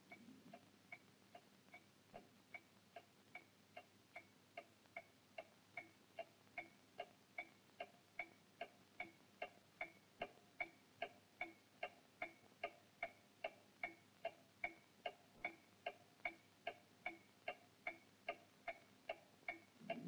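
Faint, even mechanical ticking, about two and a half ticks a second, growing louder over the first ten seconds or so.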